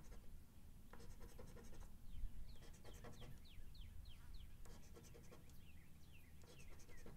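A coin scratching the latex coating off a scratch-off lottery ticket in short bursts of strokes. Between the bursts comes a run of faint, high whistled notes, each falling in pitch, repeated several times.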